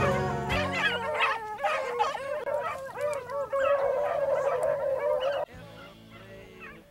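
A pack of beagles baying and howling as they run a rabbit, many voices overlapping with a long drawn-out bawl toward the end. The baying cuts off abruptly about five and a half seconds in.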